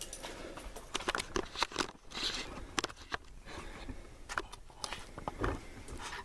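Hammers and tools being handled around a steel anvil stand and hammer rack: a string of irregular clicks, clinks and light knocks.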